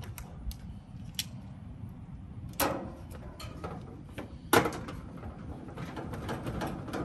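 Handling noise from an air-conditioner condenser's top fan guard with the fan motor and blade mounted on it, as the fan motor is being swapped. There are two sharp knocks about two and a half and four and a half seconds in, the second the loudest, and a run of small clicks and rattles near the end.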